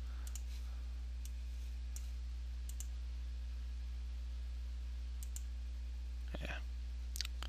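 Computer mouse clicks, a handful of sharp single and paired clicks spread out, over a steady low electrical hum.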